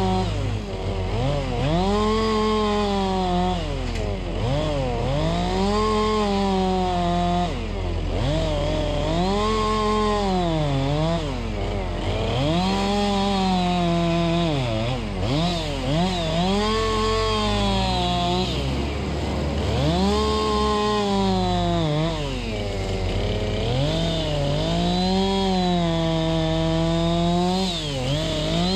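Two-stroke chainsaw cutting firewood, revving up and sagging in pitch as the chain bites into the wood, again and again about every two to three seconds. A steady low engine drone runs underneath.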